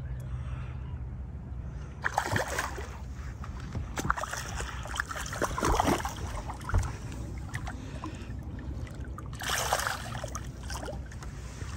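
Hooked largemouth bass splashing at the water's surface in irregular bursts as it is fought to the boat and landed, over a low steady hum.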